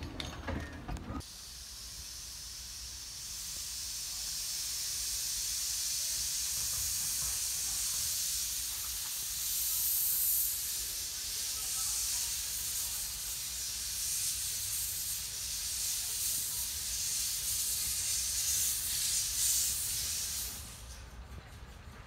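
Narrow-gauge steam locomotive hissing steam from its open cylinder drain cocks as it moves slowly. The hiss grows louder over the first half and cuts off suddenly shortly before the end, as the cocks are closed.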